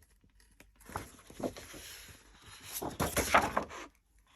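Paper and packaging rustling and crinkling as a pack of patterned craft paper is handled and leafed through, in a few irregular bursts with the loudest about three seconds in.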